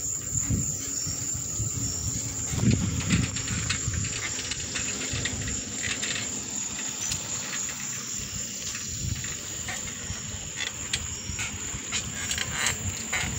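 Bicycle riding over asphalt: wind gusting on the microphone and the bike rattling, with scattered clicks. A steady high-pitched insect trill sits behind it.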